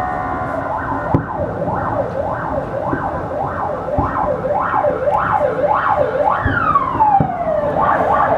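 Fireworks whistling: a quick run of overlapping rising-and-falling whistles, then one long falling whistle near the end, with a few sharp bangs in between.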